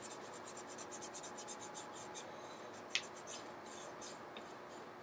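Drawing tool scratching on paper in quick back-and-forth colouring strokes, rapid at first and then sparser, with one sharper tap about three seconds in.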